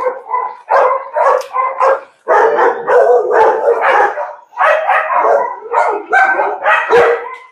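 Dogs shut in kennel runs barking over and over in quick, loud, overlapping barks.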